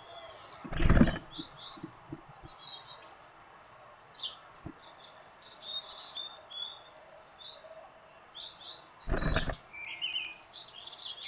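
Great tits giving short high chirps on and off, around a nest box at fledging time. Two loud low thumps break in, one about a second in and one near the end.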